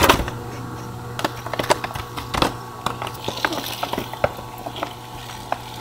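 Steady electric motor hum from a sashimi slicing machine, with scattered clicks, taps and knocks of a styrofoam takeaway tray being handled; a loud knock comes right at the start.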